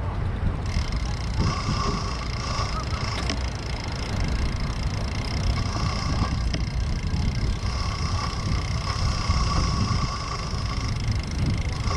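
Wind and road rumble from a bicycle in motion, with faint steady high-pitched tones over the low rumble.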